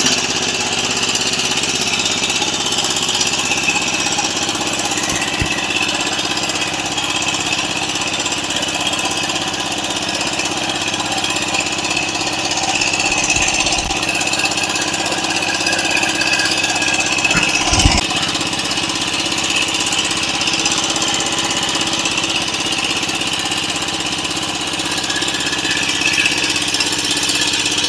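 Fishing boat's engine running steadily under way, a constant drone with no change in speed.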